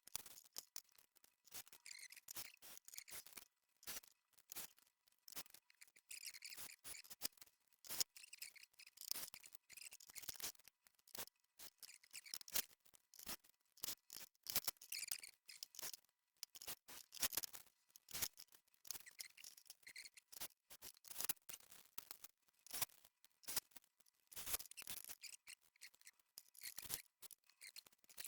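Faint, irregular run of small sharp clicks and snips from plastic cable trunking and panel fittings being handled and fitted together.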